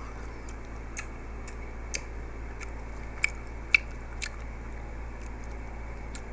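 Close-up chewing of a chocolate-coated grape: scattered sharp crunches and mouth clicks, the two loudest a little past the middle, over a steady low hum.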